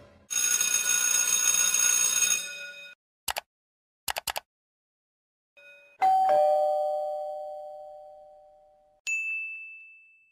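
A run of short sound effects. First a dense, bright ringing lasts about two and a half seconds, then come a few quick clicks. A two-note doorbell ding-dong, high then low, fades out over about three seconds, and a steady high beep starts near the end.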